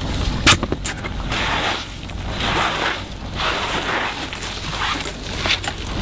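Snow being swept off a deck solar panel by a gloved hand: a run of repeated brushing swishes, with a sharp knock about half a second in.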